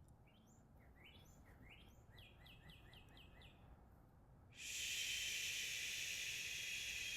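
A songbird sings a quick run of about a dozen repeated high chirps, speeding up slightly. About four and a half seconds in, a long whispered "shh" exhale starts suddenly and drowns it out: the qigong liver healing sound.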